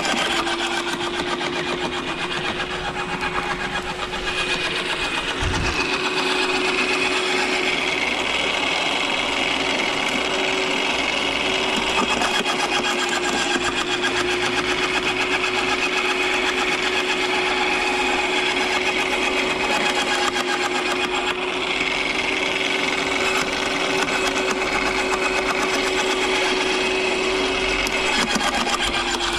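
Garden shredder running steadily with a constant motor hum while evergreen branches are fed in, its blades chewing them with continuous crackling and rattling.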